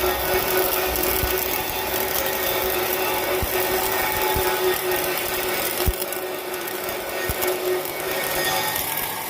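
Welding arc crackling and hissing steadily during a vertical (3G) weld, with a steady hum under it.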